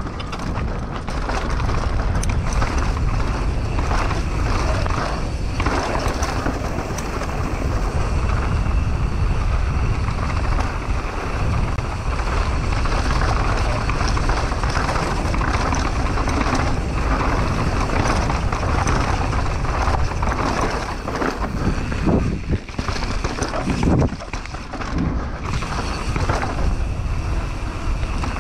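Mountain bike descending a rocky trail, heard from a camera riding along: a steady rush of wind on the microphone over tyres rolling on rock and dirt, broken by scattered knocks and rattles as the bike hits bumps.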